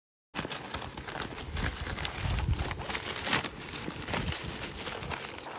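McDonald's brown paper takeout bag crinkling and rustling as it is unrolled and pulled open by hand, with handling thumps. The sound starts abruptly about a third of a second in.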